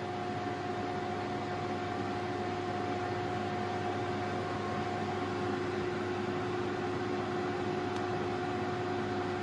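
Tefal Easy Fry & Grill Precision air fryer running, its convection fan giving a steady whir with a steady hum.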